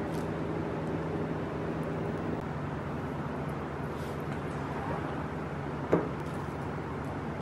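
Steady mechanical hum with a faint hiss, and one sharp click about six seconds in.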